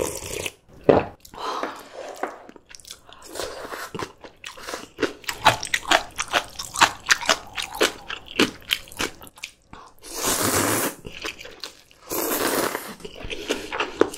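Close-miked eating of janchi guksu (noodles in anchovy broth): wet chewing with many small sharp clicks, then two slurps of about a second each near the end.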